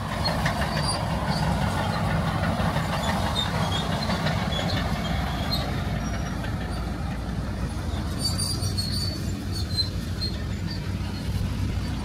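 Steady rumble of heavy earthmoving machinery and road traffic, with brief faint high squeaks scattered through it, more of them about eight seconds in.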